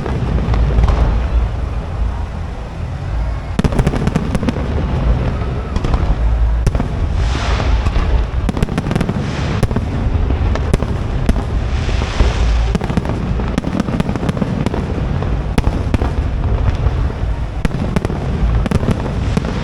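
Aerial fireworks bursting in a dense barrage: continuous deep booms with rapid crackling, and hissing swells of crackle about seven and twelve seconds in.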